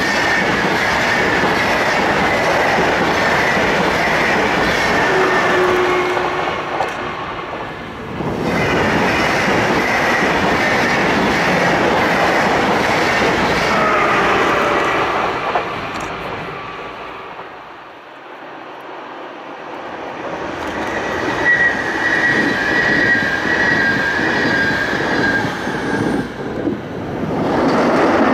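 SBB electric passenger trains passing close by, their steel wheels running loudly over the rails, with high wheel squeal heard three times. The noise eases off around the middle and builds again as the next train comes by near the end.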